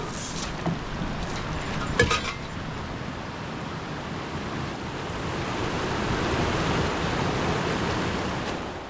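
Wind and water rushing, with wind on the microphone, and a single sharp knock about two seconds in. The rush swells in the second half and dies away near the end.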